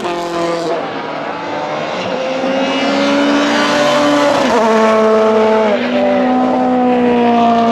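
Rally car engine under hard acceleration, its note climbing and dropping sharply at each upshift, twice in the middle, then climbing again.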